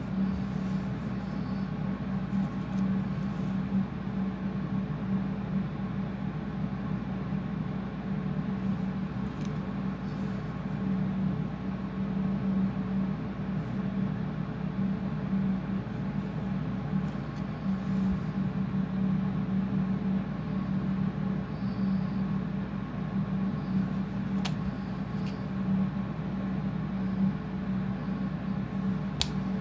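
Steady machine hum at an even level, with two faint clicks near the end.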